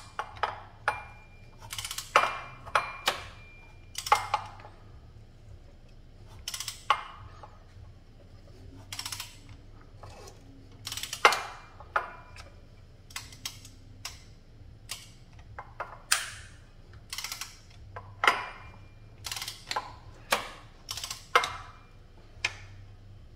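Irregular sharp metallic clicks and clacks, one to a few a second, some ringing briefly, as the Audi 3.2 V6 is turned over by hand with a wrench with its camshafts and roller rocker arms exposed. It is an unexplained valvetrain noise, which the owner takes to come from a roller rocker arm not sitting properly on its hydraulic lash adjuster and slipping.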